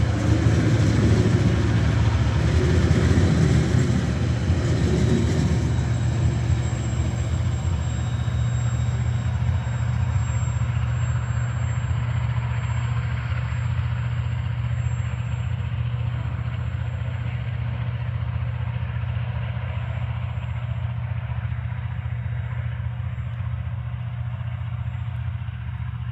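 Coal train hopper wagons rolling along the rails, the wheel noise loudest at first as the last wagons pass and then fading slowly as the train draws away, over a steady low rumble.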